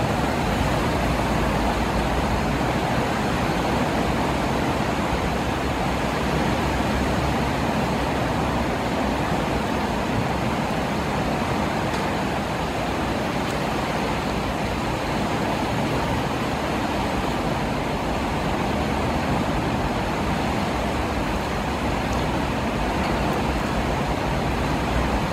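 Fast, turbulent floodwater rushing steadily, a constant noise with a deep rumble.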